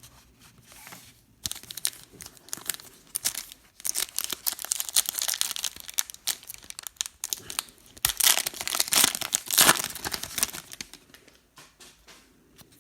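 Plastic trading-card pack wrappers crinkling and tearing as football card packs are ripped open and handled, a dense crackle that is loudest about eight to ten seconds in.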